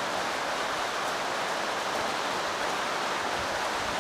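Steady, even hiss with no knocks, clicks or tool sounds.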